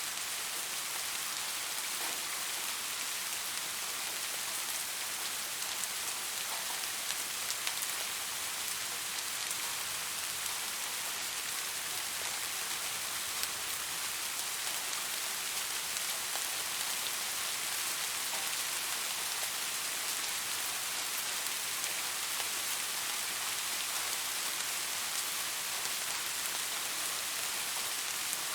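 Soft, steady rain falling, a continuous even hiss with scattered faint drop ticks.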